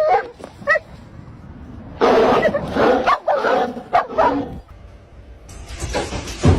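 A dog barking and yipping, with a short call just under a second in and a loud run of barks from about two seconds in that lasts a couple of seconds.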